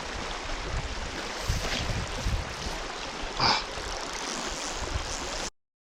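River water running steadily, with wind on the microphone and a short louder noise about three and a half seconds in; the sound cuts off abruptly near the end.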